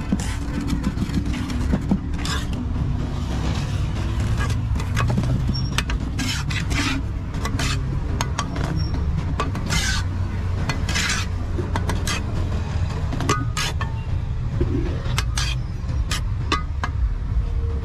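Pointed steel trowel scraping and smoothing wet concrete in a precast balustrade mould: short scraping strokes and sharp clicks of the blade against the mould, over a steady low rumble.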